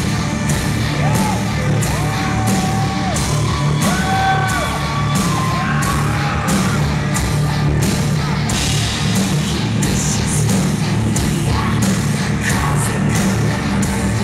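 Live rock band playing loud through a club PA, heard from the crowd: electric guitar and a steady drum beat of about two hits a second, with a singer's voice over it.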